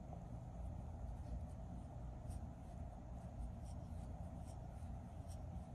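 Crochet hook and wool yarn rustling and scraping softly as a foundation chain is worked, with faint irregular ticks, over a steady low hum.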